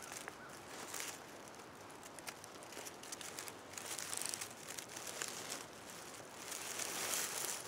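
Faint rustling and crinkling of dry leaves and brush disturbed by a person moving through them, in irregular surges with a few small clicks.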